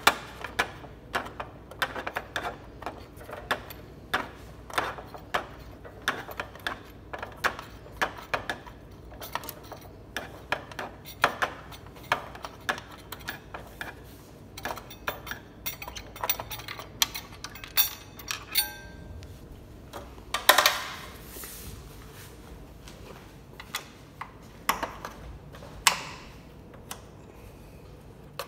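Irregular clicking and tapping of a hand tool working on the plastic and metal parts of a Canon imagePROGRAF TM-series plotter as it is taken apart. The clicks come thick and fast for most of the first eighteen seconds, followed by a short buzzing rattle, a longer scrape about twenty seconds in, and a few scattered knocks near the end.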